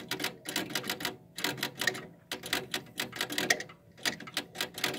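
Wall clock with a Dutch movement, its hands being turned to set the time, giving quick irregular runs of sharp clicks.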